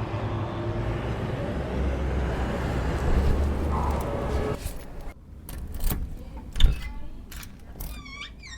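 A steady car-like engine rumble that cuts off suddenly about four and a half seconds in, followed by a few separate clicks and knocks and, near the end, a quick run of short falling chirps.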